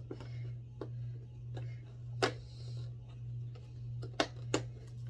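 Fingers picking and prying at the perforated cardboard door of a cat-treat advent calendar box: a few short, sharp cardboard clicks and snaps, the loudest about two seconds in and two more just past four seconds, over a steady low hum.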